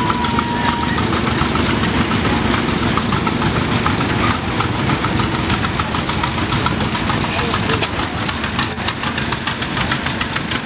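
Farmall H tractor's four-cylinder engine running slowly with a rapid, even exhaust beat that comes through more clearly near the end. A thin high whistle fades out in the first second.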